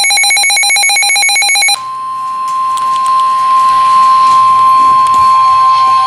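An Emergency Alert System digital header burst: a harsh, rapidly pulsing electronic buzz. It cuts off about two seconds in and gives way to the steady single-pitch 1050 Hz NOAA Weather Radio alert tone over radio hiss, which signals a warning.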